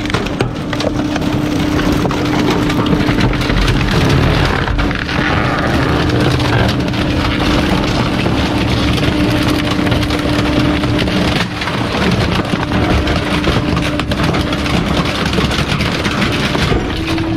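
Rear-loader garbage truck's packer blade cycling through the hopper: the engine held at high revs to drive the hydraulics, with a steady whine, while bulky household junk cracks and splinters under the blade. The whine dips briefly about eleven seconds in.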